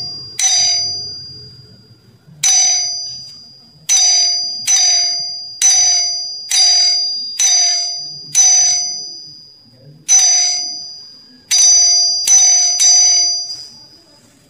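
Electric ding-dong doorbell chime, its burnt-out coil rewound, striking about a dozen times at uneven intervals. Each strike is a bright ring that fades away.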